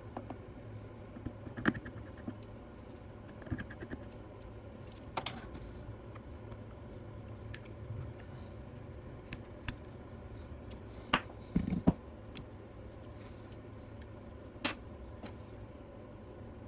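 Scattered small clicks and taps of precision repair tools against the metal housing, screws and parts inside an opened iPad Pro, coming at irregular intervals, with a few sharper clicks about a quarter of the way in and a small cluster of louder ones past the middle.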